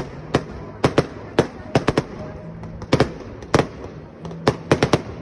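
Aerial fireworks bursting overhead: a rapid, irregular string of sharp bangs and cracks, often several a second and sometimes in quick clusters.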